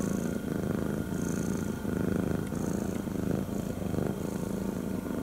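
Domestic cat purring steadily, the purr swelling and easing about every second and a half.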